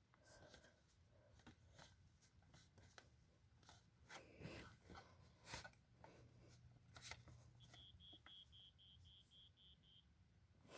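Rusted Wake and Warn 2 smoke detector sounding a very faint alarm: a quick run of high beeps, about four a second, that starts a few seconds before the end and stops shortly before it, amid soft handling clicks. The weak sound is put down to its rusted battery compartment.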